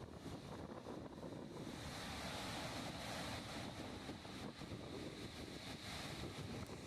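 Steady rushing roar of the Gaganachukki waterfall on the Kaveri River, mixed with wind buffeting the microphone; the hiss of the rush swells about two seconds in and stays up.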